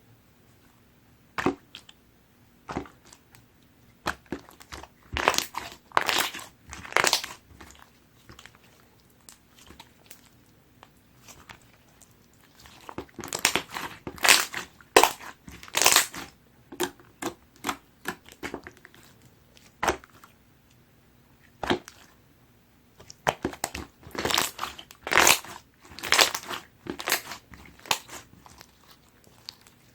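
Pearl slime squeezed and worked by hand, giving sticky clicks and pops in clusters with quieter pauses between.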